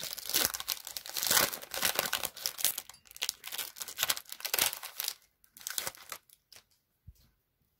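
Foil wrapper of a 2016-17 Panini Threads NBA trading card pack crinkling as it is pulled open and the cards are slid out. The crinkling is dense for about five seconds, then thins out and dies away near the end.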